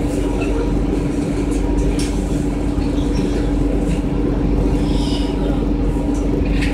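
Steady drone of a 2002 Orion VII CNG transit bus running, heard from inside the passenger cabin: an even rumble with a constant hum.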